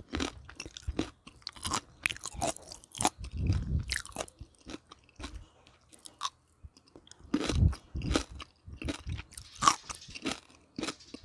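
Crisp pickled green plum (maesil jangajji) slices being bitten and chewed: irregular crunches, with a few heavier chomps.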